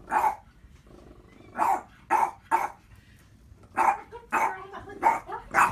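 Boston Terrier barking at its own reflection: about eight short barks in uneven bursts, with brief pauses between.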